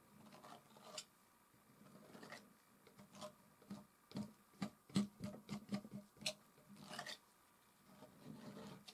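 Quiet palette knife work in oil paint on canvas: short scrapes and light taps of the steel blade, with a quick run of taps about halfway through.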